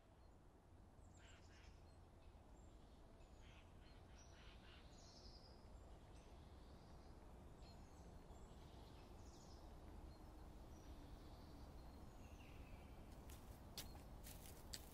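Faint forest ambience: scattered short bird chirps and calls over a low steady hum, with a few sharp taps near the end.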